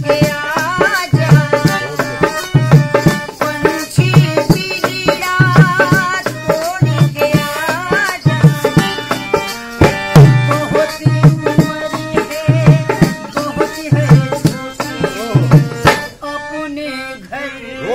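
A woman sings a Hindi film song with a wavering vibrato, accompanied by harmonium chords held underneath and a dholak whose bass strokes land about every three-quarters of a second. A rattling percussion keeps time above them. The drum strokes stop near the end.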